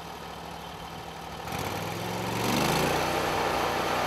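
Portable band sawmill's engine running at low speed, then speeding up about a second and a half in and growing louder, with the hiss of the band blade sawing wood building up after it.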